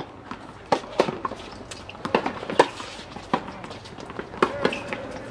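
Tennis balls being struck by rackets and bouncing on a hard court: a dozen or so sharp, irregularly spaced pops from rallies on nearby courts.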